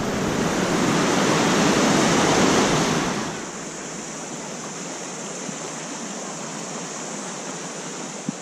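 Steady rushing of a fast-flowing river. It is louder for the first three seconds, then settles to a quieter, even rush.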